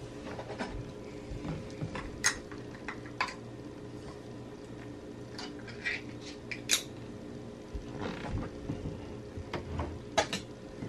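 Kitchen clatter: a handful of sharp clinks and knocks over a steady low hum. The loudest come about two seconds in, near the middle and near the end.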